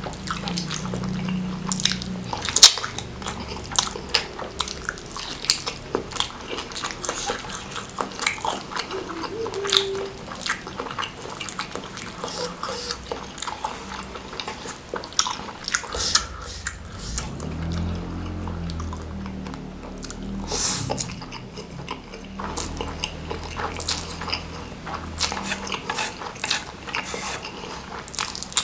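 Close-miked chewing and biting of a noodle and meatball meal, with many quick wet mouth clicks and smacks.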